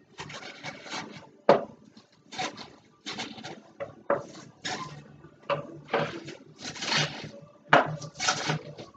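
Baby spinach leaves being pushed down into a blender jar with a long utensil: repeated rustling strokes, with a few sharp knocks.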